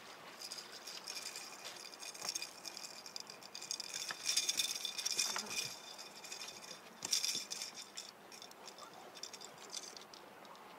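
Fishing reel being cranked to bring in a catfish: a high rattling, clicking run of reel gears and line, loudest about four seconds in and again around seven seconds.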